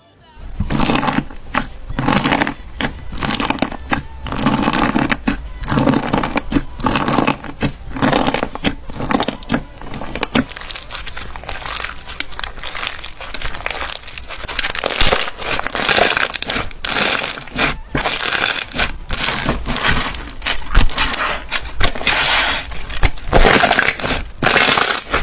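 Slime being squeezed, pressed and stretched by hand, giving a dense run of crackling, popping clicks.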